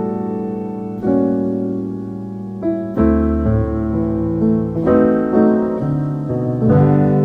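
Slow background piano music, chords struck every second or so.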